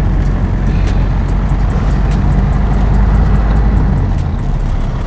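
Matatu minibus engine and road rumble heard from inside the cabin: a steady low rumble that eases slightly near the end, with scattered light clicks over it.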